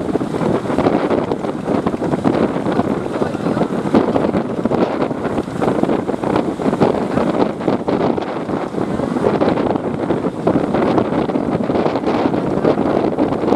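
Loud, steady wind buffeting the microphone, a fluttering rush with no pauses.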